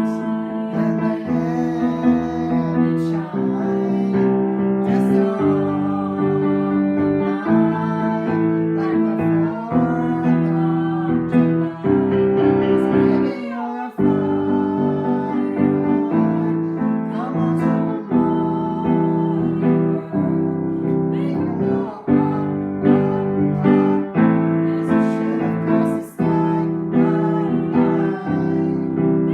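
Keyboard music with a piano sound, playing sustained chords, with a brief break about halfway.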